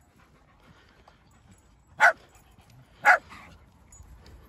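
A dog barking twice, two short sharp barks about a second apart.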